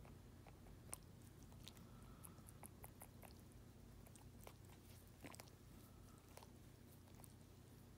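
Dog licking and nibbling at its own paw, a faint, irregular run of small wet clicks and smacks over a steady low hum.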